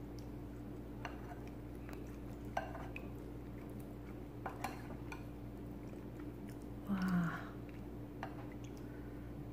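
A metal spoon clinks faintly a few times against a ceramic bowl as soup is scooped and eaten, over a steady low hum. About seven seconds in there is a short hummed "mm" from the eater.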